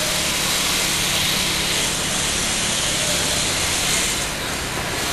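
Steady loud hiss of street noise with a faint low hum under it; the highest part of the hiss eases about four seconds in.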